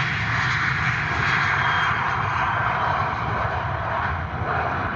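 Airbus A320 jet engines at takeoff power on departure, a steady loud rush.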